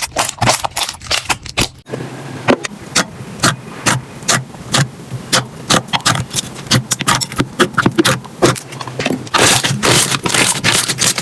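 Slime being squeezed and worked by hand, giving a run of sharp clicks and pops, a few each second. The sound changes abruptly about two seconds in, and turns to a denser scraping near the end.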